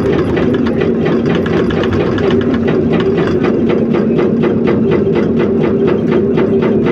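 Excavator's diesel engine running steadily under a hydraulic rock breaker hammering in a rapid, even rhythm of several blows a second.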